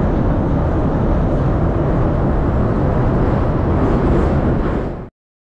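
Steady, loud, low running noise of a metro train, heard from inside the carriage. It cuts off suddenly about five seconds in.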